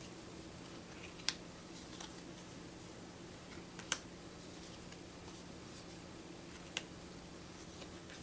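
Thin paper game cards being flicked off a deck one at a time, each card giving a sharp snap against the stack, three times, over a faint steady hum.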